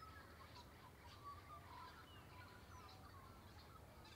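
Faint birds chirping and calling, many short overlapping notes, over a steady low hum.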